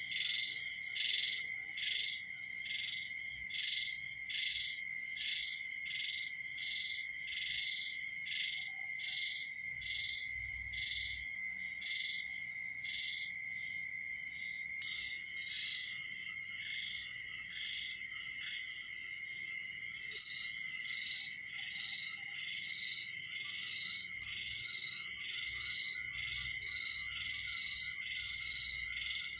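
Night-time animal chorus: a steady, high-pitched trill with a rhythmic chirping call over it, repeating about one and a half times a second at first and turning quicker and less regular after about halfway.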